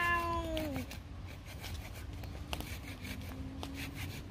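Small hand saw rasping through a thin branch in slow, uneven strokes. Near the start, a held voice trails off with a falling pitch.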